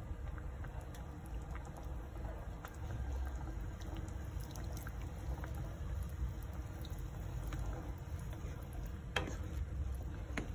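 Squid adobo (adobong pusit) simmering in a pot: the sauce bubbles steadily with many small scattered pops, and there is one sharper click about nine seconds in.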